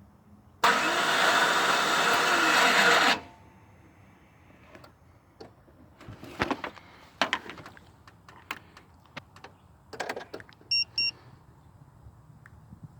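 Faulty starter motor on a GM vehicle: a loud, harsh whir for about two and a half seconds when the key is turned, then it cuts off and the engine does not catch. Later come a few faint clicks and two short beeps.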